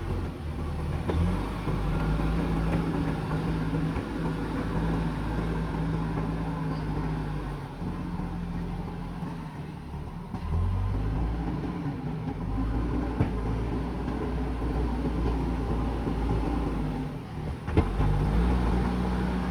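Diesel engine of a JCB backhoe loader running under working load, its engine speed dropping in the middle and rising again near the end, with one sharp knock near the end.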